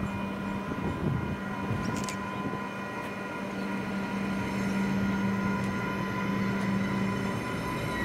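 3000 class diesel railcar approaching. Its engine gives a steady low hum with a fainter whine above it, growing louder as it nears. The hum drops out about seven seconds in as the engine note changes.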